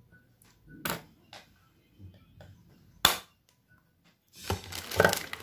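Small objects being handled: a sharp click about three seconds in, then a rapid cluster of clattering, rattling knocks near the end.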